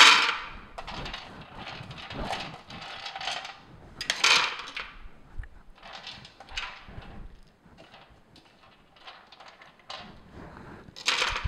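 Whole blanched almonds rattling and clattering as they are dropped by hand into a plastic food processor bowl and gathered off a metal baking sheet. The clicks come in irregular clusters, loudest at the start, about four seconds in and near the end.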